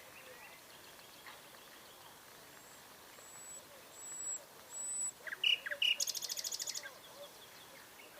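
Nightingale singing: a few thin, high whistled notes, then some lower notes and a fast rapid-fire trill, the loudest phrase, with faint chirps from other birds behind.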